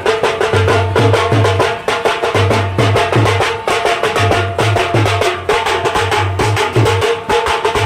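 Live band music: a fast, driving drum rhythm with a repeating bass figure under a held melody line.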